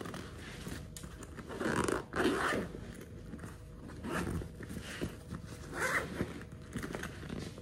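Backpack zipper being pulled open and shut over a compartment, in several short swishing strokes.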